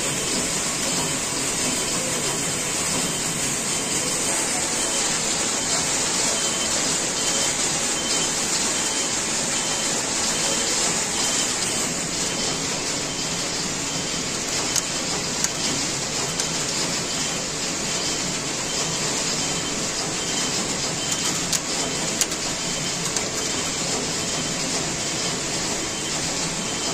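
Shima Seiki SSR112 computerised jacquard flat knitting machine running: a steady mechanical whir and rattle, with a few sharp clicks in the second half.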